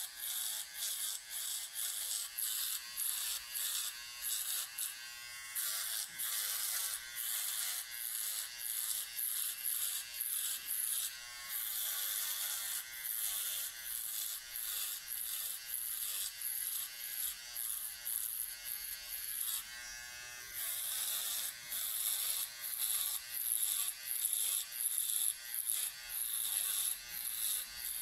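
Powertec TR-150 cylinder foil shaver buzzing as it is worked over short stubble on a shaved scalp. Its buzz comes in short rasping strokes a few times a second, with a brief lull about twenty seconds in.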